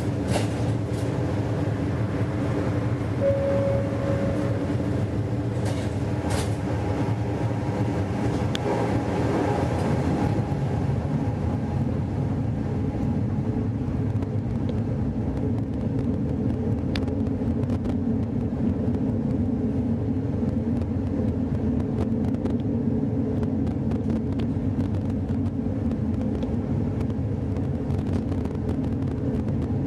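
Electric tram heard from inside at the front: a steady hum with several held tones while it stands, then after about ten seconds it runs along the rails with an even rumble.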